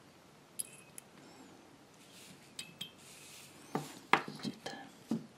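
Small metal parts clinking and knocking as a bolt, washer and nut are worked on a snow-plow light mount: a few sparse light clinks, then a quicker run of louder clinks and knocks over the last second and a half.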